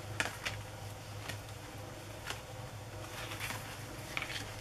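Paper and card tags being handled: short rustles and light taps as the pieces are picked up and moved, a handful of times, over a faint steady low hum.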